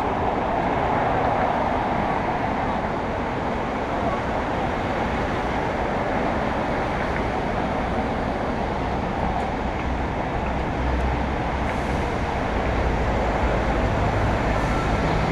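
Steady, noisy background rumble with no clear voices.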